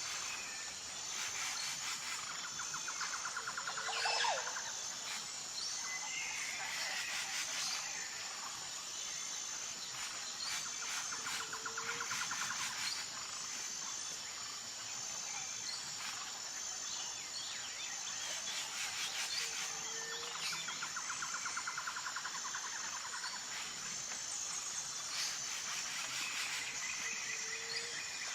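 Forest ambience: insects keep up a steady high-pitched drone while a bird repeats the same call about every eight seconds, a rapid trill with a short low note.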